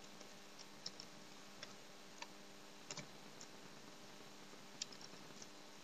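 A few faint, scattered computer keyboard keystrokes as code is typed, over quiet room tone with a faint steady hum.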